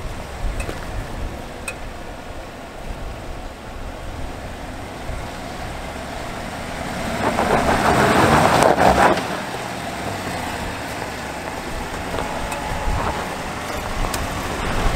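Pickup truck running off-road, with a steady low rumble that swells louder for about two seconds around seven seconds in, as the engine works harder.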